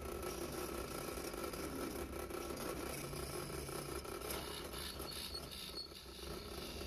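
Drill press running steadily as its bit bores into solid maple, cutting shavings, with a brief dip in level about six seconds in.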